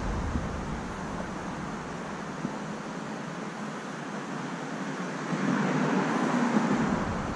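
Steady background rumble of distant road traffic, swelling for a second or two near the end as something passes.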